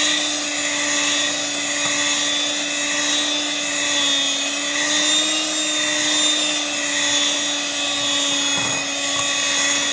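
Electric mixer running steadily, its beaters whisking thick sponge cake batter to beat out flour lumps, with a constant motor whine that dips slightly in pitch about four seconds in.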